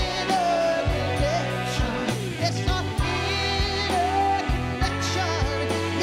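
A woman singing a song, accompanying herself on electric guitar, over a bass line and a steady beat; she holds some notes with vibrato.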